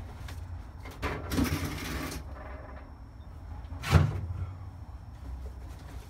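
Handling and rummaging noises in the workshop: a scraping rustle lasting about a second, then a single sharp thud about four seconds in, over a low steady hum.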